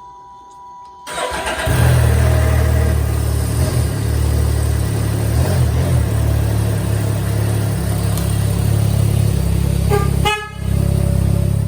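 A Can-Am Ryker three-wheeler is started and left running loudly, checked after a handlebar swap to make sure everything works. It cuts out briefly near the end and then picks up again.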